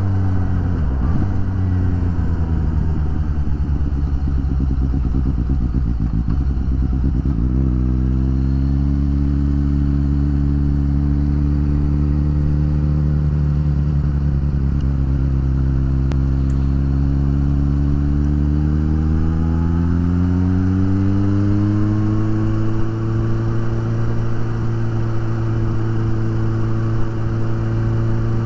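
2019 Suzuki GSX-S750 inline-four motorcycle engine heard from the bike while riding. Its note falls as the bike slows over the first seven seconds, jumps in pitch at a gear change, then climbs again as it accelerates from about twenty seconds in and holds steady.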